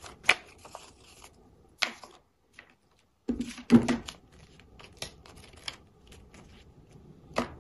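Paper rustling and short sharp crackles as stiff paper inserts and a paper cable sleeve are handled and pulled apart, broken by a second of silence partway through.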